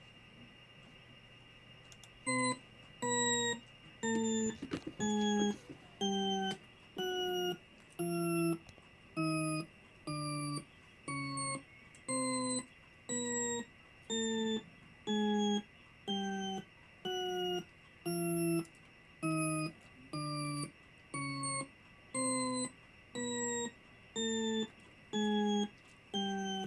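A repeating electronic tone, each note about half a second long and sounding a little more than once a second, beginning about two seconds in, with a faint steady high whine beneath it.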